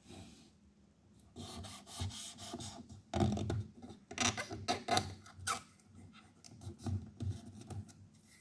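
A thin tool scraping and rubbing in irregular strokes at the edge of a laptop's touchpad button, being worked into the gap to free a button that is stuck down.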